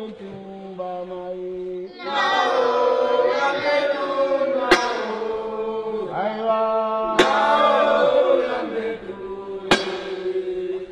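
A group of voices chanting a song, quieter for the first two seconds, then loud as many voices sing together. Three sharp strikes fall about two and a half seconds apart.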